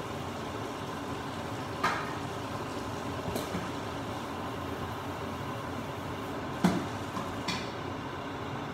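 Paper towels wiping grease across a hot Bella ceramic-coated griddle, over a steady hiss, with a few brief knocks, the loudest nearly seven seconds in.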